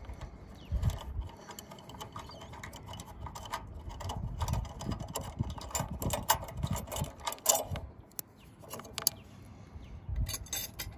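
Irregular small clicks, scrapes and a few light knocks of metal parts being handled as a hot water tank's thermostat is worked loose and unclipped from its spring-metal bracket against the tank.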